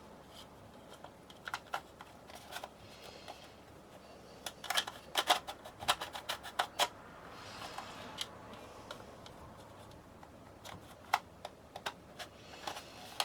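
Hard plastic clicks and taps from a camping light's casing being handled and pressed together over its clips, coming in scattered clusters, busiest about five to seven seconds in.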